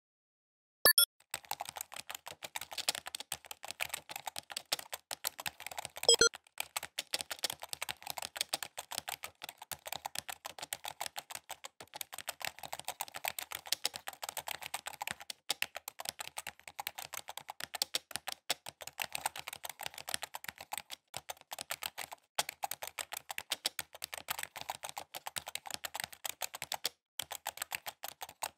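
Computer-keyboard typing sound effect: a fast, dense stream of key clicks with brief gaps, starting about a second in. Two louder short bursts come about a second in and about six seconds in.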